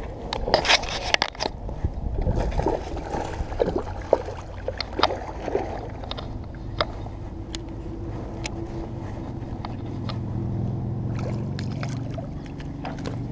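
Water splashing and sloshing as a hooked smallmouth bass thrashes at the surface beside a kayak, with many scattered sharp clicks and knocks, loudest in the first few seconds.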